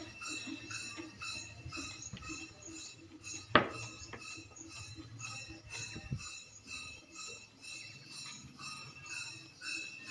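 Devotional music with a quick, even jingling beat of small percussion, about three to four strokes a second. One sharp, loud knock comes about three and a half seconds in, and a softer one follows a little later.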